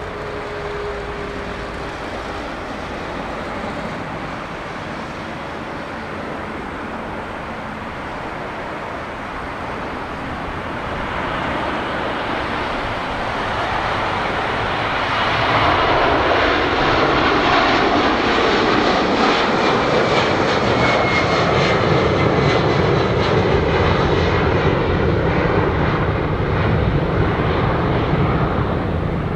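Boeing 767-300ER's twin jet engines at takeoff thrust, a rumble that grows louder over the takeoff roll and lift-off and is loudest as the airliner climbs past, with a faint whine over the top.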